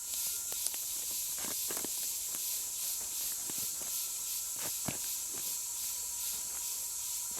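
Digging at a metal-detector target in soil: a few scrapes and knocks of the tool, over a steady high hiss that pulses about three times a second and a faint steady detector tone.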